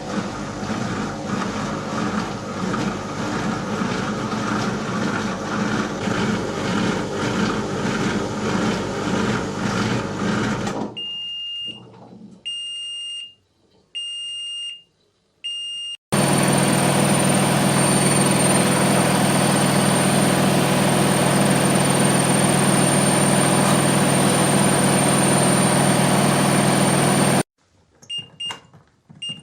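Washing machine running with a dense, rhythmic churning, then four short high electronic beeps about a second apart. After that comes a steady loud machine hum with a high whine that cuts off suddenly, followed by a few more beeps near the end.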